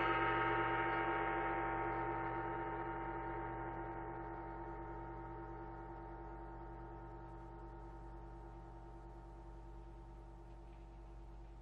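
A tam-tam's resonance ringing on after a loud passage, with many overlapping tones slowly dying away over about ten seconds. A steady low mains hum sits underneath.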